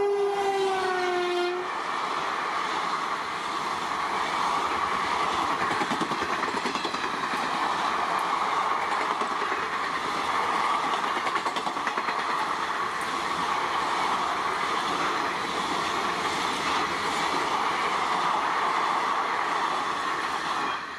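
Electric locomotive's horn sliding down in pitch as the engine passes and stopping about a second and a half in, followed by the rushing noise and rapid wheel clatter of a fast train's coaches going by, which drops away at the very end.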